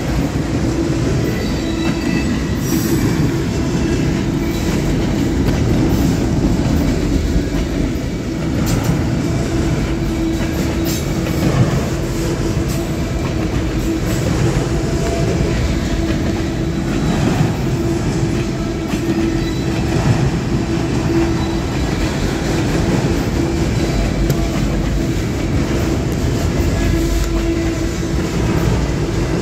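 A freight train of autorack cars rolling past close by: a steady rumble and clatter of steel wheels on the rails. A steady squealing tone runs over it, and there are a few sharper knocks here and there.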